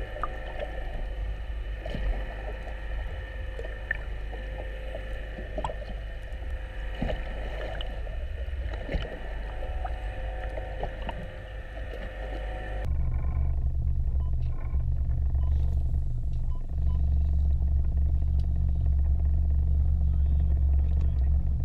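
Underwater sound: a steady hum with several held tones and scattered small clicks. About 13 seconds in it cuts to a louder, steady low rumble on a boat's deck at sea.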